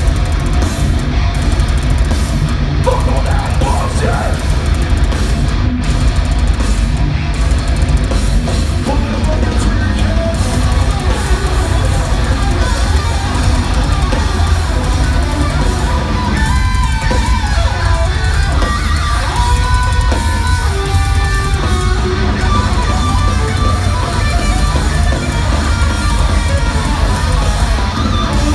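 Heavy metal band playing live: distorted electric guitars over bass and a drum kit, an instrumental passage with a guitar melody standing out in the second half.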